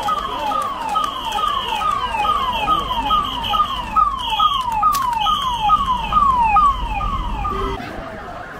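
Vehicle siren wailing in quick repeated falling sweeps, about two a second, cutting off suddenly near the end, over the low rumble of vehicles passing close by.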